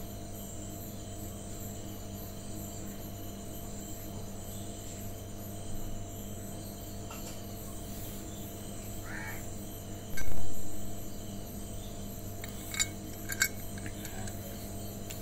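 A steady low hum, a loud dull thump about ten seconds in, then two sharp metallic clinks near the end as anchor bolts in a steel plate are handled.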